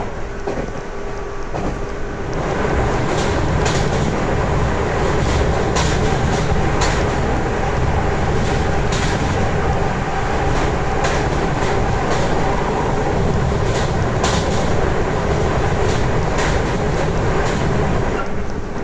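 JR Kyushu 811 series electric train with external-fan traction motors running at speed, heard from inside the car: steady running rumble with a faint motor tone, scattered sharp clacks of wheels over rail joints, and a step up in loudness about two and a half seconds in.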